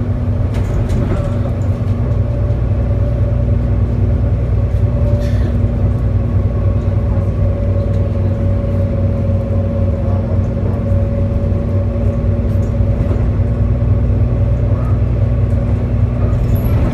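Otokar Kent C12 city bus under way at steady speed, heard from inside the passenger cabin: a steady low engine and drivetrain hum with a constant whine over it, and road noise.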